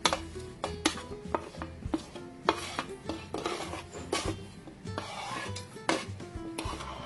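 Metal spoon scraping across a plate and clinking against a steel blender jar as powdered spices are scooped in, giving irregular sharp clicks and short scrapes.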